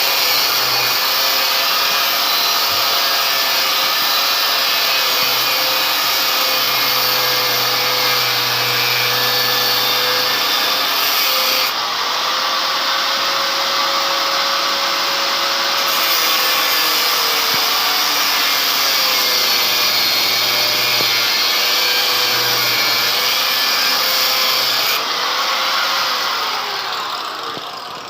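A power tool cutting iron: a steady, loud, hissing grind with a motor tone that sags and recovers as it bites into the metal. The sound changes abruptly about 12, 16 and 25 seconds in, and fades near the end.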